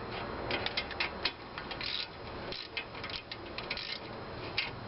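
Socket wrench ratchet clicking in short runs of strokes as the brake caliper bolts are tightened.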